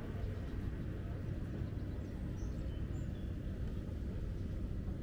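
Steady low rumble of a docked passenger ferry's engine idling, with a few faint bird chirps about halfway through.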